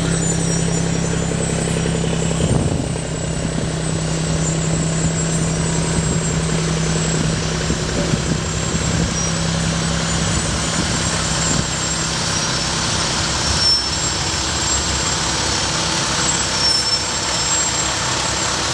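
Diesel engines of fire apparatus rolling slowly past at close range: a fire engine's steady low drone, then an aerial ladder truck pulling alongside.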